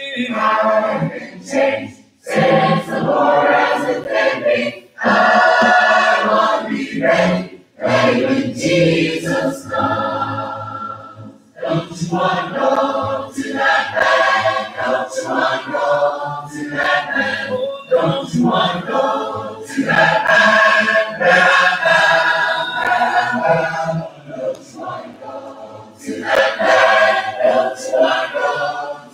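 A group of voices singing a gospel spiritual unaccompanied, in call and response: a lead voice sings a line and the group answers. Brief breaks fall between some phrases.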